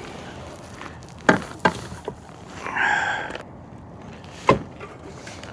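Sharp knocks on a kayak, one about a second in, another just after, and a louder one near four and a half seconds, with a brief voice-like sound between them.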